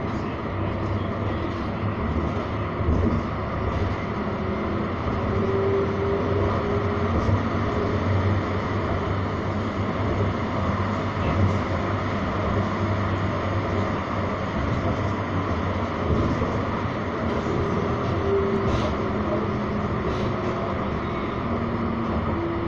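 Edinburgh tram, a CAF Urbos 3, running at speed, heard from inside the passenger car: a steady rumble of wheels on rail and running noise. A humming tone rises out of it briefly a few times.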